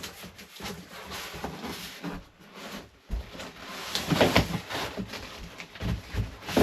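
Handling noise from a PC case and its packaging being worked with by hand: irregular rustles, scrapes and knocks, loudest about four seconds in and again near the end.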